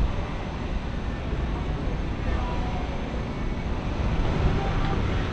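Busy city street ambience: a steady low rumble of traffic with the indistinct chatter of passers-by.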